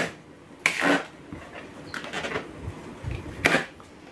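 Teeth and lips rubbing on a taut inflated latex balloon in a failed attempt to bite it open: a few short scraping noises and a dull bump near the end, with no burst.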